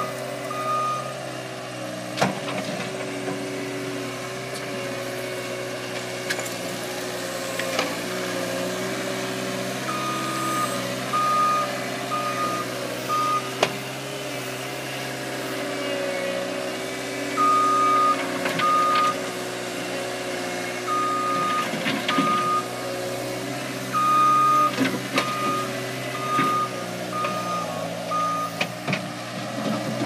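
Cat 262C skid steer's diesel engine running as it pushes dirt, with its reverse alarm beeping in several runs of evenly spaced beeps, a little under one a second, each time the machine backs up. Occasional sharp knocks are heard in between.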